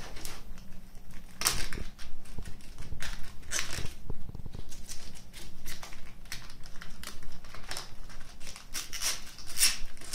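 Leaves of a white cabbage being pulled off the head by hand, with irregular crisp crackles as they tear away, a few louder than the rest.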